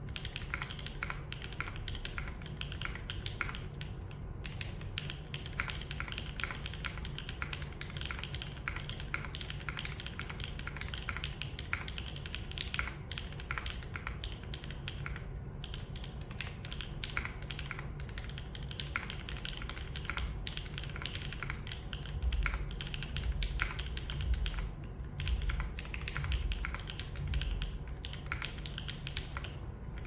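Continuous fast typing on a Shelby 80 TKL mechanical keyboard built with Yokeebs x Noir Horizon switches, an aluminium plate with plate foam, and GMK Light Honor keycaps: a dense, unbroken stream of keystrokes. A low rumble rises under the keystrokes for a few seconds near the end.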